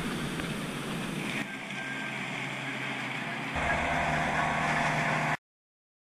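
Outboard motorboat running across the river, a steady engine drone mixed with rushing water noise. The sound changes abruptly twice, and a steadier engine hum comes in about three and a half seconds in. It cuts to dead silence shortly before the end.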